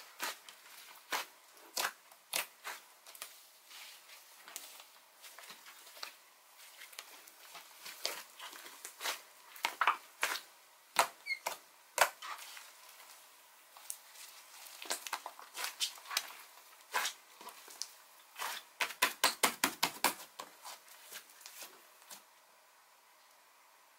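Mint dough clay slime being squished and pressed by hand, giving irregular sharp pops and clicks. Late on, a quick run of about a dozen pops comes in close succession.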